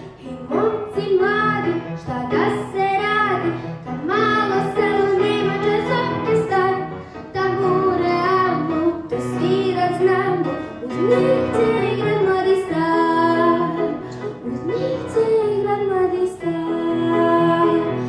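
A young girl singing a song solo over instrumental accompaniment.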